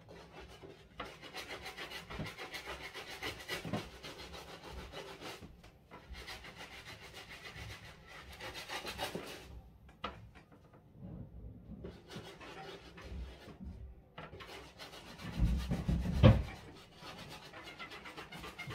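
Medium-bristle brush scrubbing the Boost foam midsole of a sneaker in quick back-and-forth strokes, in four spells with short pauses between them. A few low thumps about three-quarters of the way through are the loudest part.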